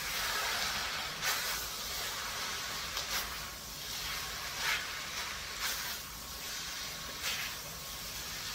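Tofu-skin strips and pork sizzling in a wok with a steady hiss, stir-fried with a wooden spatula and a metal turner. The utensils scrape or clack against the wok every second or two.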